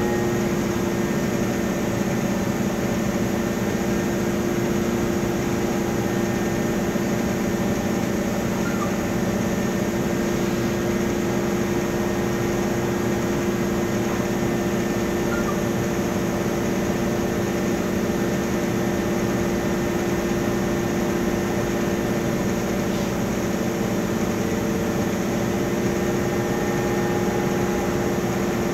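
Engine cooling fan of a MAN Lion's City articulated CNG bus with a MAN E2876 LUH03 engine, running noisily while the bus stands still, heard from inside the passenger cabin. The sound is a steady drone of several held tones that does not change.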